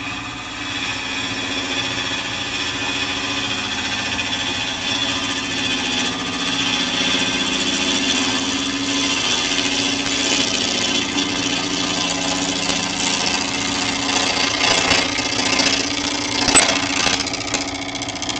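Wood lathe running while a turning tool cuts the outside of a spinning natural edge bowl blank: a steady motor hum under a continuous shaving hiss from the cut, getting louder partway through, with a few sharp ticks near the end.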